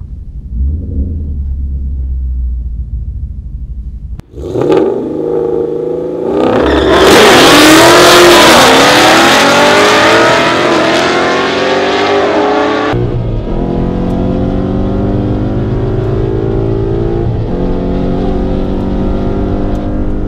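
A 2013 Ford Mustang GT's 5.0 V8 rumbling at low revs on the starting line, then launching at full throttle and running hard through the gears down the drag strip, very loud with the engine pitch climbing and dropping. Near the end it is heard running at lower, steadier revs.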